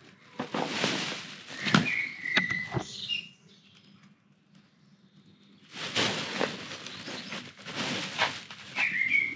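A full plastic bin bag of litter rustling and crinkling as it is handled and set down on a bathroom scale, in two spells with a short quiet gap between them, with a few light knocks. A bird chirps briefly in the background.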